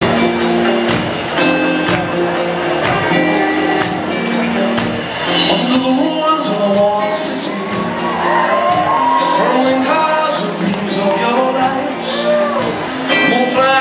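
A live band plays over a steady, quick percussion beat, with held low chords and electric bass. From about five seconds in, a male voice sings wordless notes that slide up and down.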